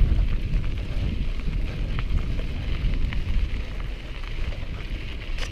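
Wind buffeting the microphone while riding a mountain bike along a dirt track, a steady low rumble with scattered light ticks from the tyres on gravel.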